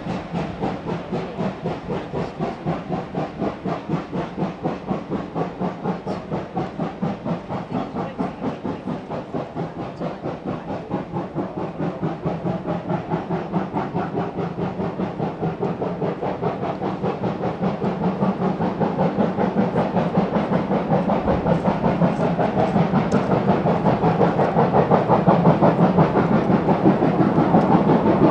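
Steam locomotive working a train, its exhaust beats coming in a steady, rapid rhythm that grows louder over the last third.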